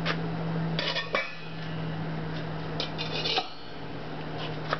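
Stainless steel dog bowls set down on a concrete patio, clanking in two bursts, about a second in and again around three seconds in, the first ringing briefly. A steady low hum runs underneath.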